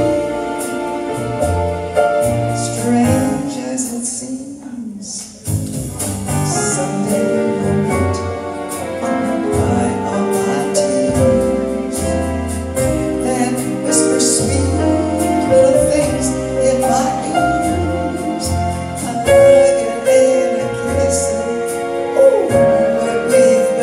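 A slow jazz ballad with a bass line and keyboard accompaniment, and a woman singing into a microphone over it. The music drops briefly in loudness about four seconds in.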